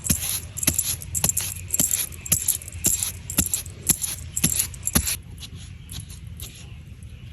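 A run of sharp knocks or taps, about two a second, that stops about five seconds in.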